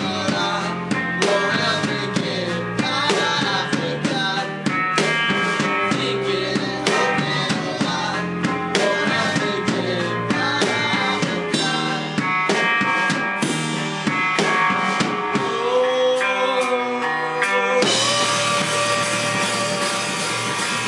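Live rock band playing: drum kit, electric guitars and bass. Near the end the low end drops away for a couple of seconds under a held guitar note, then the full band comes back in with a wash of cymbals.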